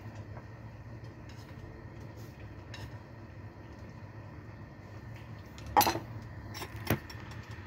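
Metal cookware clatter from chopsticks and a stainless-steel pot lid being handled at the stove, with two sharp clanks about six and seven seconds in, over a steady low hum.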